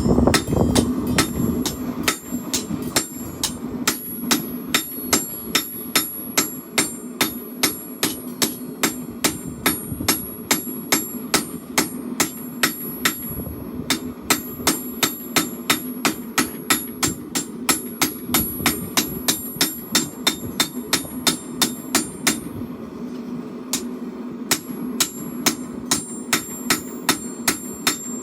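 Forging hammer striking hot steel on an anvil in steady blows about two a second, each with a bright metallic ring, pausing briefly twice. A steady low hum runs underneath.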